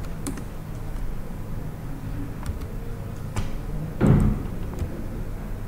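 A steady low background hum, with a few faint clicks and one louder dull thump about four seconds in.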